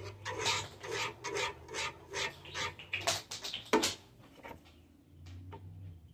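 A spoon stirring sauce in a pot, scraping in quick regular strokes about two to three a second, with one sharper, louder knock a little after halfway before the stirring stops; a low hum remains.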